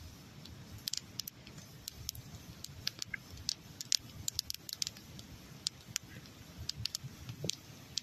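Campfire crackling, with irregular sharp pops and clicks over a soft low rush, mixed with small sticky clicks of a wooden stick digging into a honeycomb frame.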